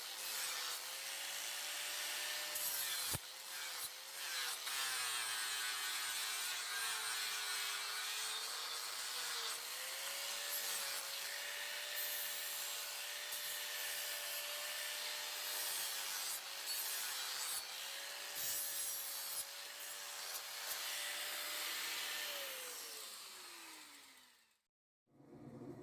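Electric grinder grinding a steel blade: a steady grating hiss over the motor's hum, whose pitch sags for a few seconds under load. Near the end the grinder is switched off and its motor winds down to a stop.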